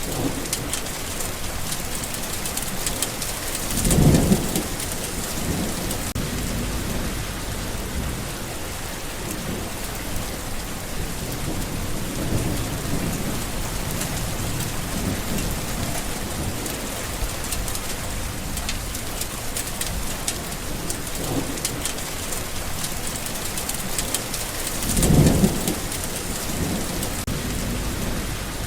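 Steady heavy rain with a constant hiss of drops, and rolling thunder: two louder low rumbles, about four seconds in and again near the end, with fainter rumbles between.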